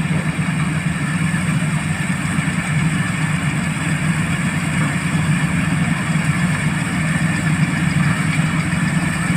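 Preet 849 combine harvester's engine running steadily at a constant speed.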